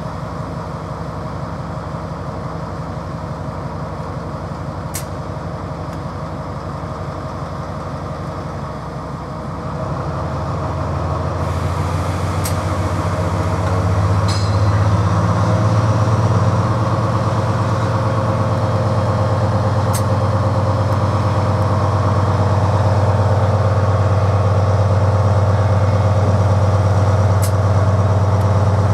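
Freightliner Class 70 diesel locomotive's GE PowerHaul V16 engine running with a steady drone, then building up in power about a third of the way in as the locomotive pulls away with its container train, and holding at the higher note.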